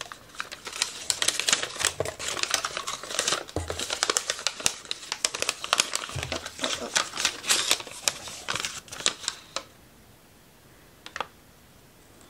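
A mailed package being unwrapped by hand: dense crinkling and rustling of wrapping material with many sharp crackles, stopping about ten seconds in, followed by one small tick.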